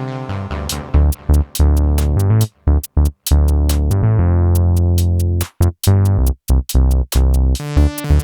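Electronic background music with a drum-machine beat and deep synth bass, chopped into stuttering gaps near the middle.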